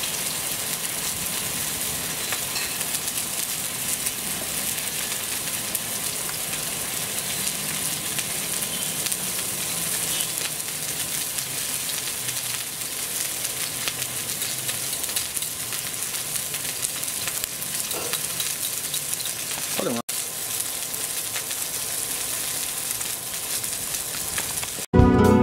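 Monkfish pieces sizzling in hot oil in a nonstick frying pan, a steady frying hiss as the fish sears to form a light crust. Music comes in at the very end.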